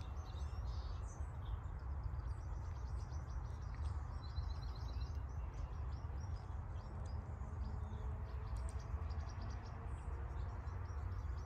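Birds chirping and trilling in quick short calls over a steady low background rumble.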